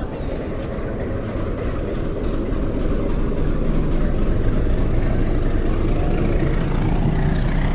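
Diesel locomotive engine running as the train rolls along the platform: a steady low rumble that grows somewhat louder over the first few seconds.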